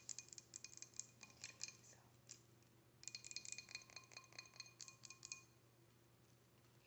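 Rapid, light clicking and clinking of small hard objects with a faint ring, in two bursts of about two and a half seconds each.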